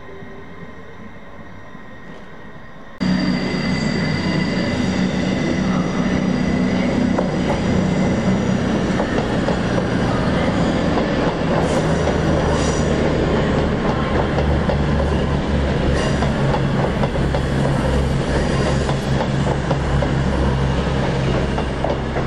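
CrossCountry diesel multiple unit running close by along a station platform, its underfloor diesel engines giving a steady low drone that deepens about ten seconds in, with some wheel squeal and a few clicks from the wheels. For the first three seconds there is only the quieter sound of an electric train approaching, cut off suddenly.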